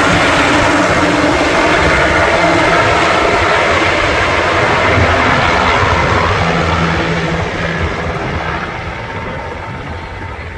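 Twin-turbine military helicopter flying overhead, its rotor beat and turbine whine loud at first, then fading over the last few seconds as it flies away.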